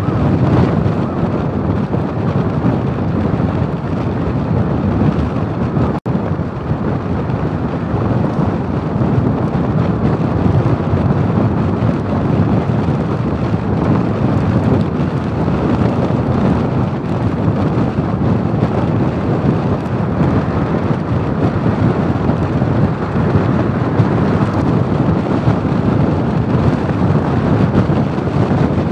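Steady rumble of wind buffeting the microphone of a camera mounted on the roof of a moving camper van, mixed with road noise. The sound cuts out for an instant about six seconds in.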